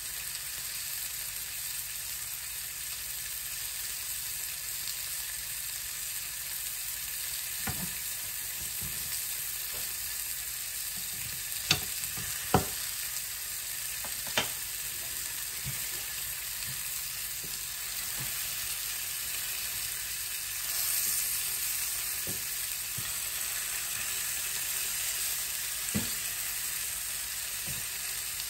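Chicken pieces sizzling in butter in a frying pan, a steady hiss. A few sharp knocks come through it, three close together around the middle and one near the end.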